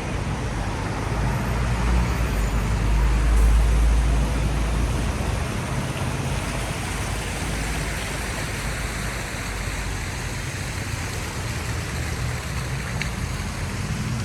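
Traffic on a rain-wet city street: a vehicle's low rumble swells and passes about two to four seconds in, over a steady hiss of tyres on wet road and rain.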